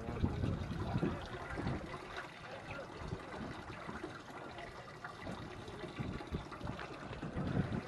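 Choppy seawater sloshing and splashing in an irregular wash.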